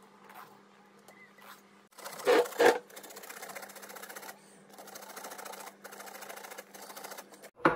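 Two knocks a little over two seconds in, then a bottle gourd being grated on a stainless steel box grater: a fast, even rasping in two long runs.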